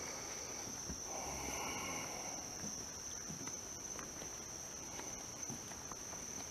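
Steady high-pitched chorus of night insects such as crickets, with faint footsteps underneath.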